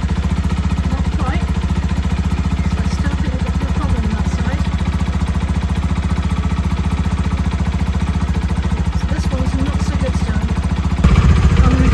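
Keeway Superlight 125 motorcycle engine idling steadily, the bike now running without stalling after its starter switch was cleaned. It gets louder about eleven seconds in.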